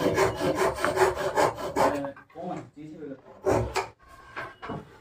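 Hand rubbing on a harmonium's wooden frame: rapid scraping strokes, about six a second, for the first two seconds, then a few scattered knocks, the loudest about three and a half seconds in.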